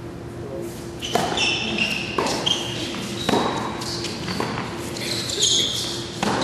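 Tennis rally on an indoor hard court: a serve and then sharp racket strikes and ball bounces about once a second, with sneakers squeaking on the court between shots, echoing in a large hall.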